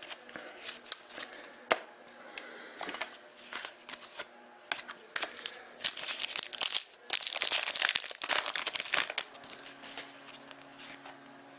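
Trading-card pack wrapper crinkling and tearing as it is opened, with short clicks and rustles of cards being handled. The loudest crinkling comes from about six to nine seconds in.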